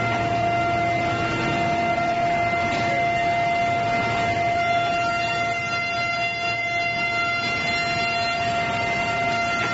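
QMB723GH wood planing machine running, its cutter head spinning with a steady high whine over a background of machine and hall noise.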